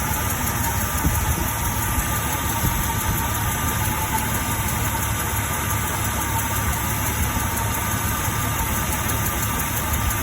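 A 2000 Jeep Cherokee XJ engine idling steadily, with a ticking sound coming from the engine.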